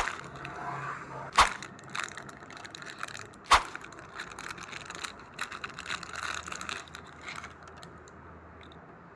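Clear plastic packaging bag crinkling and crackling as it is pulled open by hand, with three sharp cracks: one at the very start, one about a second and a half in and one about three and a half seconds in. The crinkling dies away about seven and a half seconds in.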